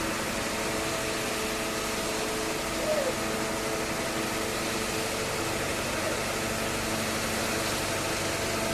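Engine of concrete road-construction machinery running steadily at a constant speed, a hum of several steady tones over a noisy rush. About three seconds in, a brief higher sound rises and falls over it.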